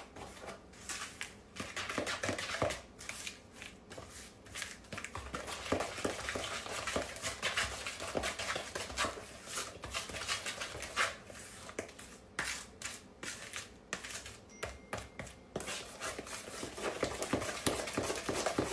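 A utensil stirring coconut pie filling in a mixing bowl, with repeated irregular scrapes and clinks against the bowl.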